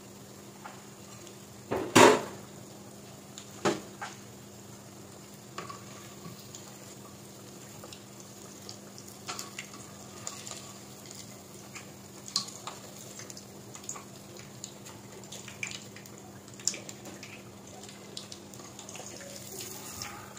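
A metal ladle knocking and clinking against a pot while battered eggs are stirred and lifted out of frying oil, with one loud knock about two seconds in and lighter clinks after. The oil sizzles softly under a steady low hum.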